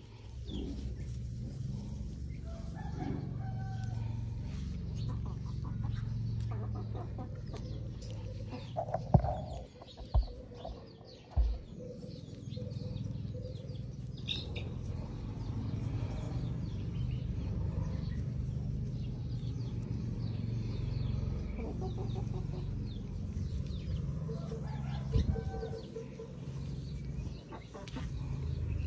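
Birds calling now and then over a steady low rumble, with a few sharp knocks about nine to eleven seconds in.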